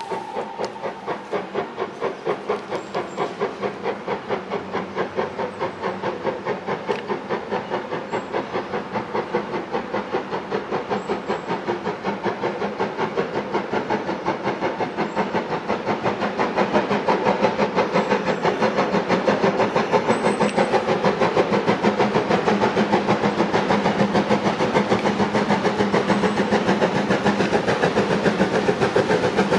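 Stanier Mogul 2968 steam locomotive working a train, its chimney exhaust beating fast and evenly and growing louder as it approaches, loud and steady from about halfway through.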